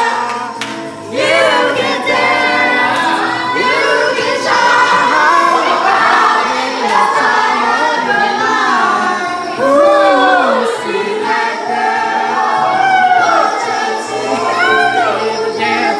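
Group karaoke singing: several voices, one through a microphone, singing along with a backing track played over speakers.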